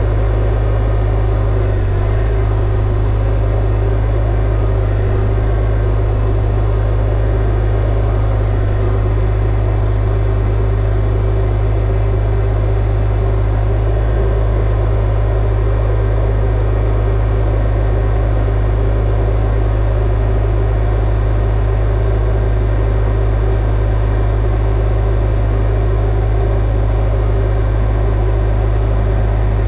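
Broderson IC-35 carry deck crane's engine running steadily, a loud, unchanging low drone, while the crane's hydraulics hoist its own front axle back up on a strap.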